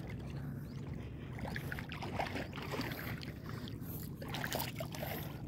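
Shallow seawater sloshing and splashing around someone wading, under a steady low rumble.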